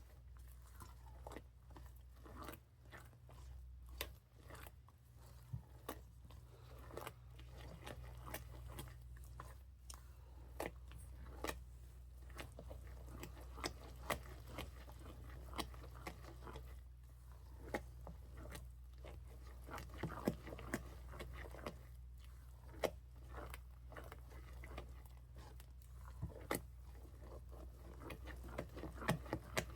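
Spoon stirring a sticky mixture of melting marshmallows, butter and peanut butter in a pot: irregular clicks and scrapes of the spoon against the pot, over a low steady hum.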